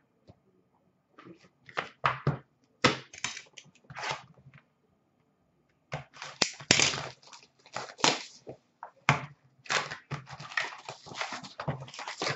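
A 2018-19 Upper Deck Ice hockey card box being opened by hand: cardboard and pack wrappers rustle, crinkle and tear in a run of short, sharp bursts. The bursts come in a few separate handfuls at first, then turn dense and almost continuous from about six seconds in.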